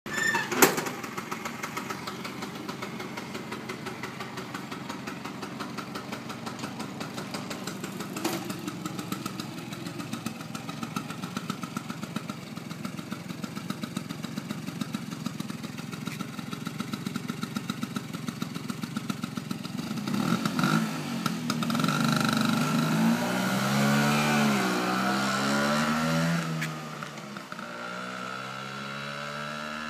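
1980 Bajaj scooter's two-stroke single-cylinder engine idling with a steady putter after a sharp knock in the first second. About 20 seconds in it revs up and pulls away, its pitch climbing and dropping several times through the gears, then it fades quickly as the scooter moves off.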